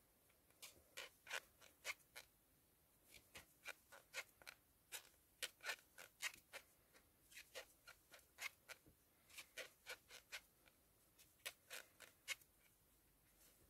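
Faint, irregular clicks and scratches, a few a second, from a metal crochet hook working plush chenille yarn in single crochet.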